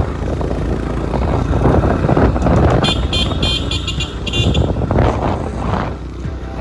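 Motorcycle engines running with a steady low rumble. From about three seconds in comes a quick run of short, high-pitched beeps that lasts under two seconds.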